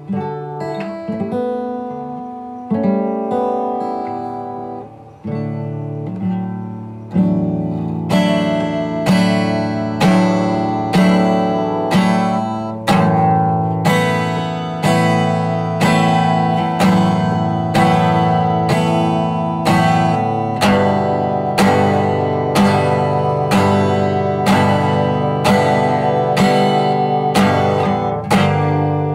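Background music on acoustic guitar: a few slow picked chords at first, then strummed chords about once a second.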